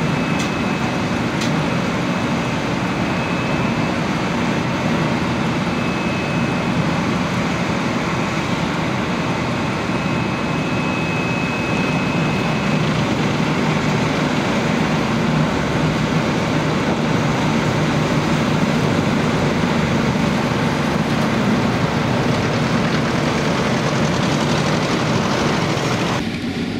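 Diesel engines of an asphalt paver and the tipper truck feeding it, running steadily, with a thin high whine through the first half.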